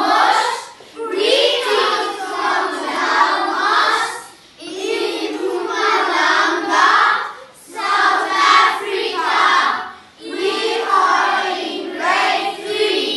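A class of children singing together in unison, in phrases of two to three seconds, each followed by a brief pause.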